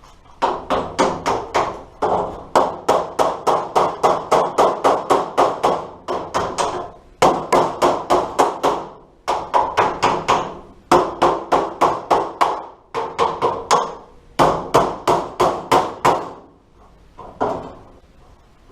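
Hammer beating the dented steel door skin of a 1939–47 Dodge pickup flat, in fast runs of ringing metal-on-metal blows, about four or five a second, with short pauses between runs.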